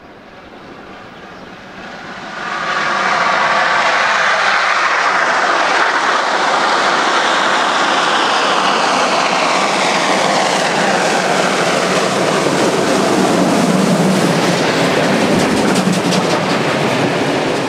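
DR class 44 three-cylinder 2-10-0 steam locomotive approaching and passing close by, working hard: a heavy, steady roar of exhaust and escaping steam that builds over the first few seconds, with sharp clattering from the running gear and wheels near the end as it goes by.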